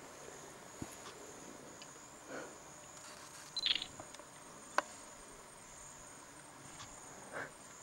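Steady, high-pitched chirring of insects in the bush, with a few short soft rustles and clicks over the top.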